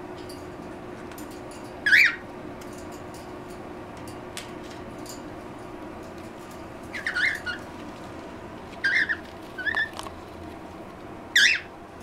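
Pet parrots calling in short, sharp chirps, five in all, a few seconds apart.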